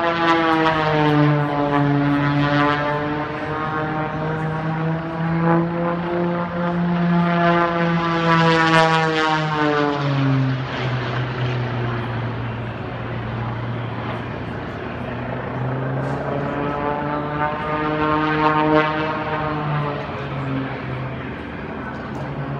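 Red Bull Air Race plane's Lycoming six-cylinder engine and propeller droning as it flies the course. Its pitch bends up and down as it turns, drops sharply as it passes about ten seconds in, and rises and falls again near the end.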